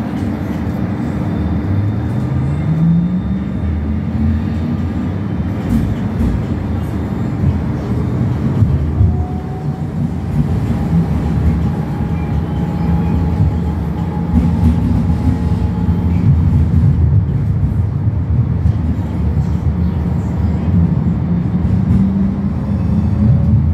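Croydon tram in motion, heard from inside the passenger saloon: a steady low rumble of the wheels on the rails. About two seconds in, a whine from the motors rises in pitch, and a fainter higher tone holds for several seconds near the middle.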